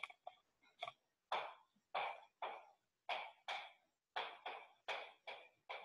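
Handwriting: a run of short, faint scratching strokes, about two a second, as words are written out on a list.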